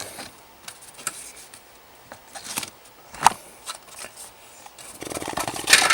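Small items and packaging being handled during an unboxing: scattered light clicks and rustles, a sharp click a little past three seconds, and a longer stretch of rustling or scraping near the end.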